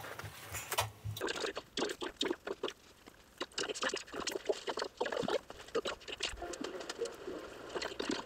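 Close-up crunching and chewing of crispy fried chicken: a run of irregular crisp crunches starting about a second in.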